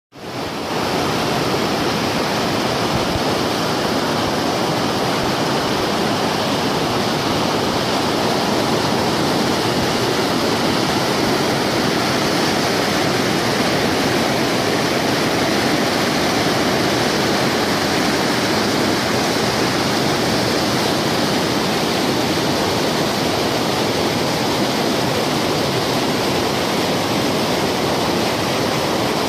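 Shallow river water rushing over and around large boulders in white rapids: a steady, full rushing sound that fades in during the first second.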